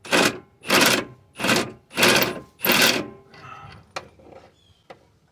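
Ratchet wrench clicking through five quick strokes, about one every half second, on the motor mount bolts. Then quieter tool handling with a couple of sharp clicks.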